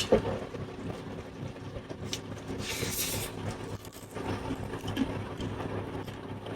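Eating at a meal: scattered clicks and a sharp knock of utensils and dishes, with a brief crunchy rustle about three seconds in, over a steady low electrical hum.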